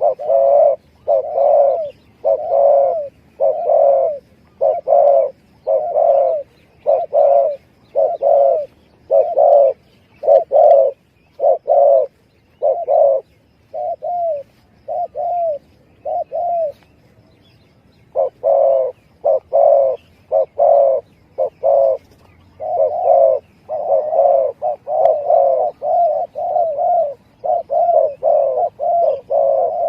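Spotted dove (tekukur) cooing, played as a lure call to draw in wild doves. Coos repeat about once a second, pause briefly past the middle, then come faster in close runs near the end.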